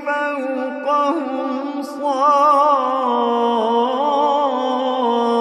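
A man reciting the Quran in a slow melodic chant, drawing out long ornamented notes with no instruments.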